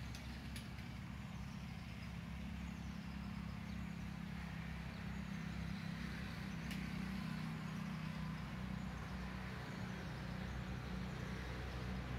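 A steady low engine-like hum that swells a few seconds in. There are a couple of faint sharp clicks near the start and another about seven seconds in.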